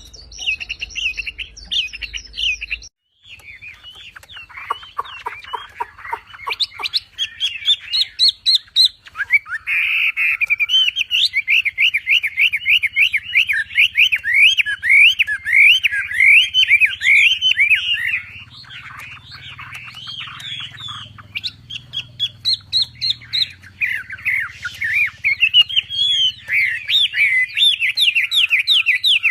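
Wambi songbird singing a fast, continuous chattering song of rapid rising and falling whistled notes, delivered in long repeated bursts.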